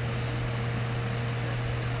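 Black and Decker box fan running steadily: a low motor hum with a fainter higher tone above it, over the even rush of air from the blades.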